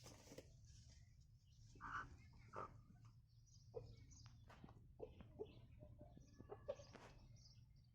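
Faint, scattered short clucks and calls of chickens, with a few light clicks and knocks over a low steady hum.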